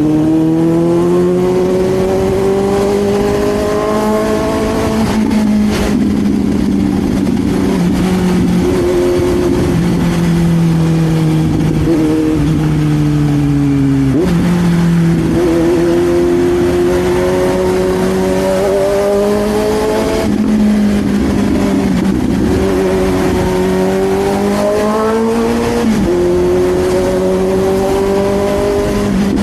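Suzuki GSX-S750 inline-four engine through an SC Project slip-on exhaust, ridden under load: its pitch climbs steadily and drops sharply several times as the rider shifts gears or closes the throttle.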